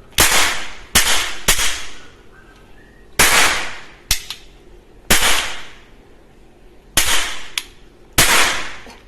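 Toy guns firing gunshot sounds: about nine sharp bangs at uneven intervals, a few of them fainter, each dying away over about half a second.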